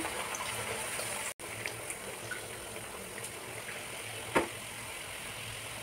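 Spinach (palak) puris deep-frying in hot oil: a steady sizzle that drops out for an instant a little over a second in, with a single sharp click about four and a half seconds in.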